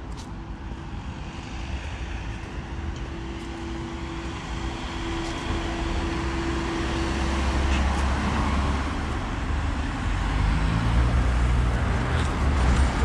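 Street traffic noise, with a motor vehicle's engine hum growing louder in the second half as it comes close.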